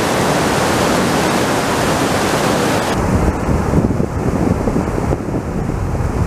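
Whitewater rapids rushing over boulders in a steady, full noise. About three seconds in the sound turns duller, and gusts of wind buffet the microphone under the rushing water.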